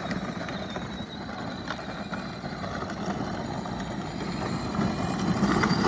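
Child's side-by-side UTV running and driving, a steady low motor rumble that grows louder near the end as it comes closer.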